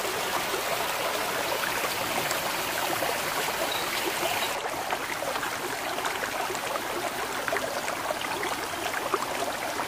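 Steady rush and splash of water pouring from an inlet spout into a concrete fish pond. The sound shifts abruptly about halfway through.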